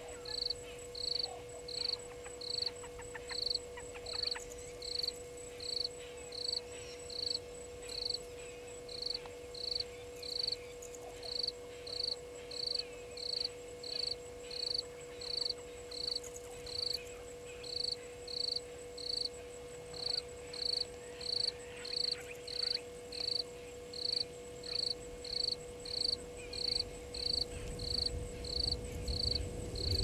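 An insect chirping in short, high, evenly spaced pulses, about three every two seconds, over a steady low hum, with faint distant bird calls now and then.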